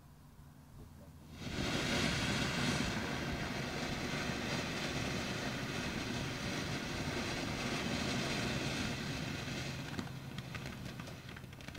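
Ground firework fountain catching about a second and a half in and spraying sparks with a steady loud hiss, which fades near the end into sharp crackling pops.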